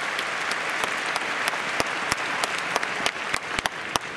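Stadium crowd clapping. The dense applause thins to scattered separate claps near the end.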